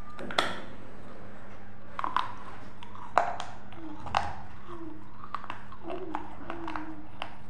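A person biting into and chewing a crisp, crunchy food: a few sharp crunching bites, the loudest just over three seconds in, with smaller crackles and mouth sounds between them.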